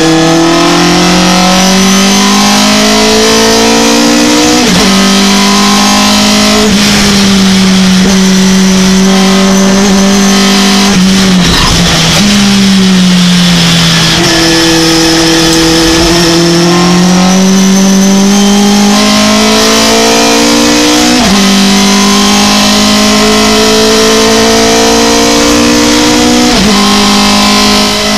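Racing pickup truck's engine under hard acceleration, heard from inside the cab. The note climbs steadily through each gear and drops sharply at each upshift, four times, and about halfway through it falls away as the truck slows for a corner before pulling hard again.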